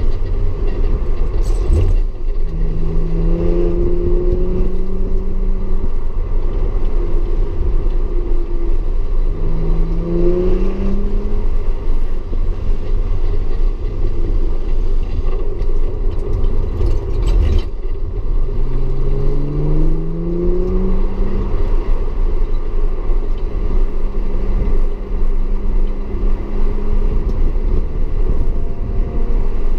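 Audi S4 engine heard from inside the car on track, pulling hard, its pitch climbing three times and holding steady between climbs, over a heavy low rumble of road and wind noise.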